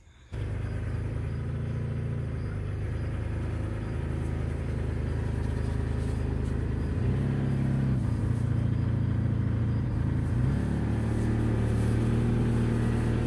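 Kubota L2501 tractor's three-cylinder diesel engine running steadily as the tractor drives off. The engine note shifts slightly around the middle and again later.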